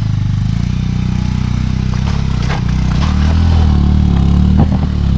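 Bajaj Avenger 220 motorcycle's single-cylinder engine running under load on a loose stony climb, getting louder about three seconds in, with several sharp knocks and scrapes of stones under the tyres. The Avenger struggles somewhat on this climb.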